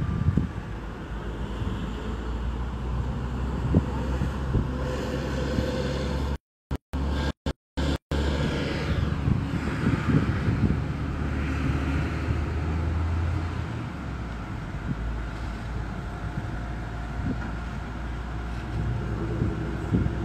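Heavy vehicle engines running steadily with road traffic noise, heard through a phone's microphone: a low drone that eases off about two-thirds of the way through. The sound cuts out completely several times for a moment about a third of the way in.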